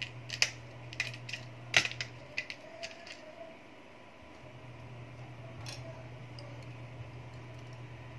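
Light, sharp clicks and taps from handling a disassembled iPhone and a small precision screwdriver, a quick run of them in the first few seconds. After that only a low steady hum remains.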